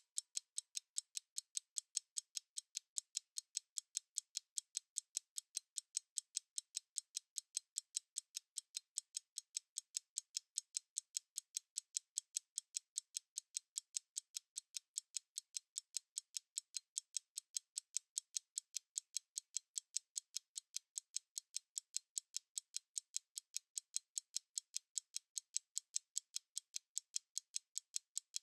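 Mechanical stopwatch ticking: a fast, perfectly even train of sharp, thin ticks, several a second, steady throughout.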